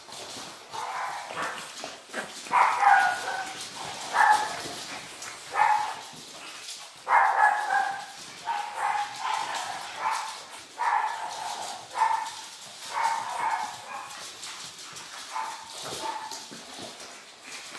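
Pug puppies barking: a long run of short, high-pitched barks, about one a second.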